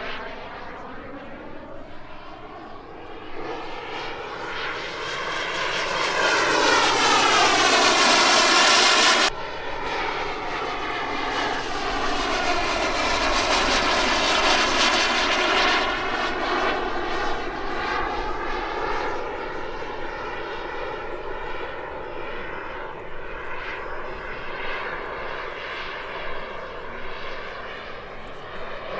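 EvoJet 220 model jet turbine in a giant-scale RC Fiat G91 flying past. The jet noise swells to a loud pass that breaks off suddenly about nine seconds in, builds to a second peak a few seconds later, then slowly fades as the jet draws away.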